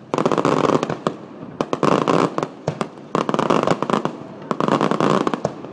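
Aerial fireworks bursting, with four loud runs of dense crackling about a second and a half apart and sharp bangs between them.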